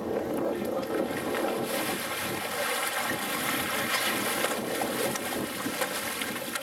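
Large yellowfin tuna thrashing and splashing against the boat's hull as it is gaffed. The splashing comes in a run of sharp bursts through the middle, over a steady rushing of water and boat noise.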